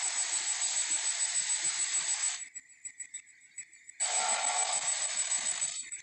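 Animated Tyrannosaurus rex sound effect: a long, harsh, noisy roar that cuts off about two and a half seconds in, followed after a quieter gap by a second roar of about two seconds. The audio has a dull top end.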